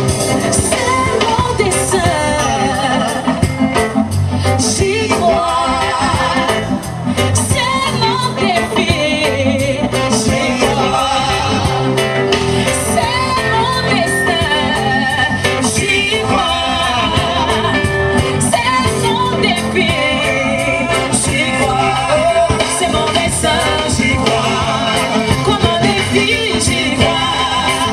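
Live band music with singing: vocalists over electric guitar, bass guitar and drums.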